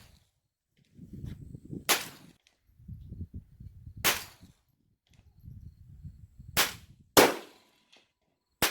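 Rifle shots on a shooting range: five sharp reports a second or two apart, the loudest about seven seconds in. A low rumble fills the gaps between shots.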